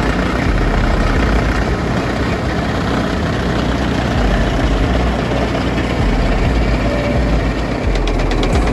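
Keestrack K5 mobile screening plant running: a steady, loud, heavy machine noise from its power unit, conveyor and vibrating screen deck.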